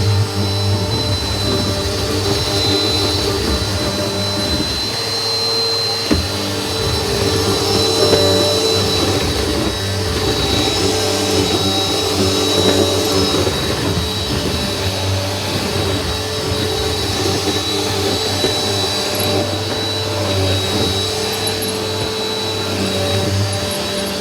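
Household vacuum cleaner running steadily with a high motor whine over a rough hum. There is a single brief knock about six seconds in.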